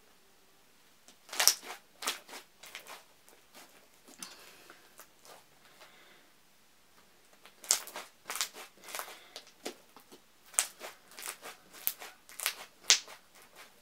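Thick slime being stretched and squeezed by hand, giving off sharp clicks and pops: a short cluster of them about a second in, then a denser run near the end.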